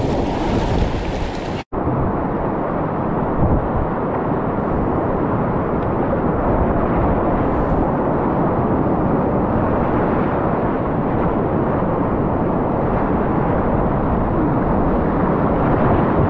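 Steady loud rush of whitewater rapids around an inflatable kayak running them, with waves slapping the boat and splashing over the camera. The sound drops out for an instant just under two seconds in.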